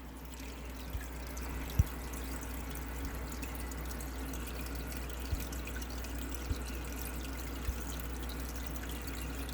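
Steady trickle and splash of aquarium water circulating, over a constant low hum, with a few soft knocks scattered through it.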